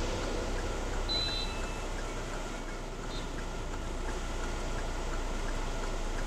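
Steady low rumble of a car's engine and road noise heard from inside the cabin as it creeps through traffic. There is a brief high tone about a second in and another short one near three seconds in.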